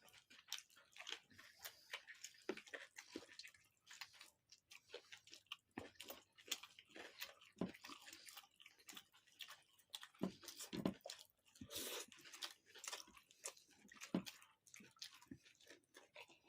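People chewing food, with many soft, irregular mouth clicks and smacks.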